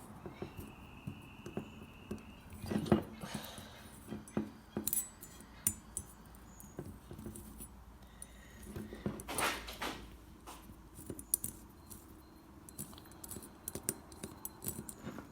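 Light clicks and taps of an Allen key and small metal engine parts being handled while the heat sink screws of a nitro RC engine are undone, with two louder handling noises about three and nine seconds in.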